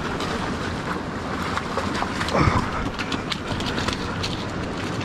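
Steady rush of river water mixed with wind on the microphone, with scattered small clicks and crunches on rocky gravel.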